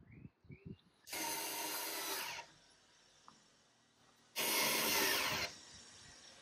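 Power drill running in two steady bursts, the first about a second and a half long, the second about a second, with a few light knocks on the wooden cabinet just before.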